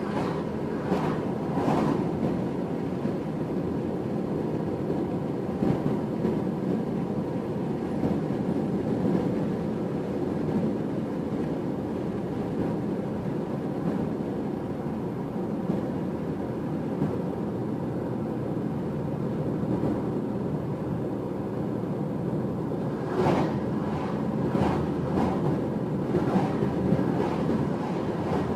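Steady road and engine noise inside a car cruising on a two-lane highway, with a few brief louder rushes near the end.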